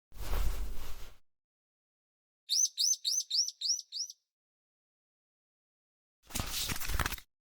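A bird chirping six times in quick succession, about four short rising chirps a second, between two brief bursts of noise lasting about a second each, one at the start and one near the end.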